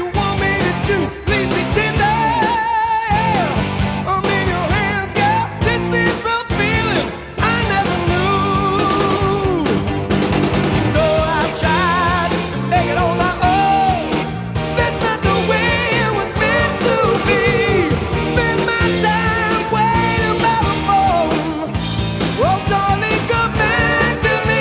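Background rock song with a sung vocal over a steady beat.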